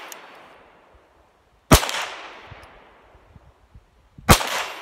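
Two shots from a Calico M100 .22 LR pistol, about two and a half seconds apart, each followed by an echo that fades away over a second or two.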